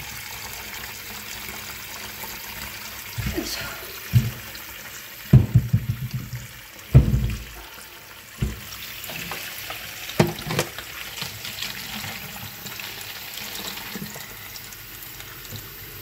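Kitchen tap running into a stainless steel bowl in the sink, a steady stream of well water left running to flush it clear. Several loud knocks and splashes between about three and eleven seconds in as the bowl and a plastic bottle are handled under the stream.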